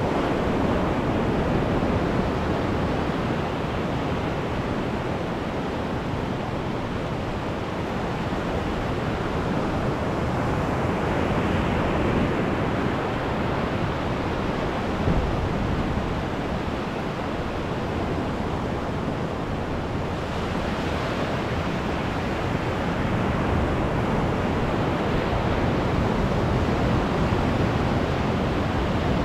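Ocean surf breaking and washing up the sand at the water's edge, a steady rush that swells twice as waves run in.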